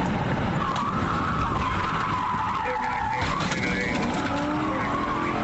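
Car tyres squealing as a car is driven hard at high speed: a wavering high squeal over steady road and engine noise.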